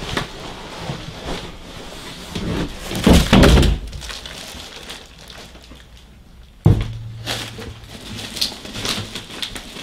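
Plastic wrap rustling loudly as a 40-pound desktop PC tower is lifted out of its cardboard carton, then one heavy thunk about two-thirds of the way through as the tower is set down on a desk, followed by light crinkling of the plastic.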